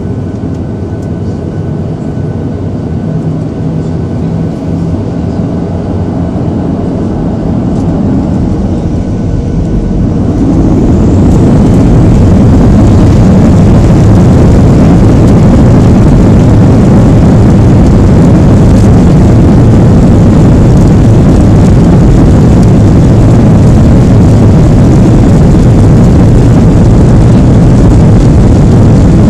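Boeing 737-700's CFM56-7B jet engines heard in the cabin over the wing: a lower running sound with steady tones builds slowly, then about ten seconds in the engines spool up with a rising whine to a loud, steady roar as takeoff thrust is set for the takeoff roll.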